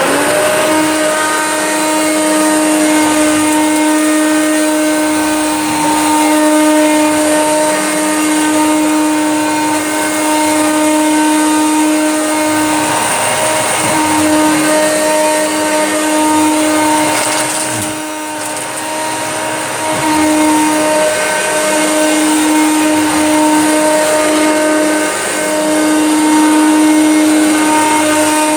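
Hoover Turbomaster upright vacuum cleaner running as it clears up fluff and dog hair: a steady motor hum with a high hiss, the hum wavering briefly a few times.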